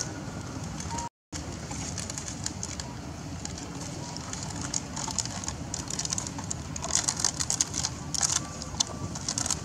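A dove cooing over a steady low outdoor background. From about halfway, a run of quick sharp crinkling crackles, which fits a young long-tailed macaque handling a scrap of wrapper.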